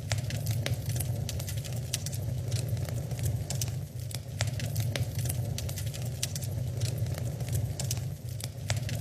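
Wood fire crackling, with many sharp, irregular snaps and pops over a steady low rumble.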